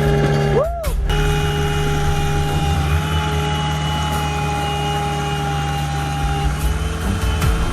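Excavator's diesel engine running steadily under load, with a steady whine over it, briefly broken a little under a second in. A few short knocks come near the end.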